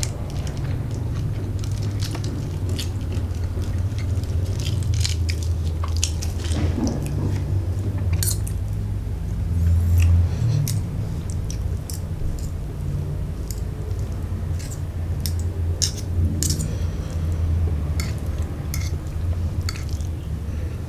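A person chewing a mouthful of fried rice vermicelli close to the microphone, with scattered wet mouth clicks, over a steady low hum.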